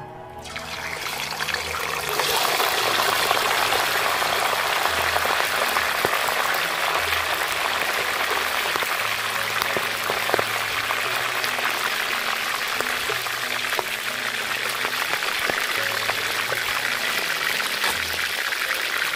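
A whole chicken goes into hot oil in a large aluminium wok. The oil starts to sizzle about half a second in, builds over the next two seconds, then holds a loud, steady deep-frying hiss.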